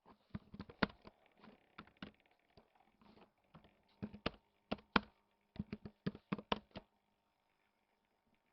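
Typing on a computer keyboard: a run of irregular keystrokes that stops about seven seconds in.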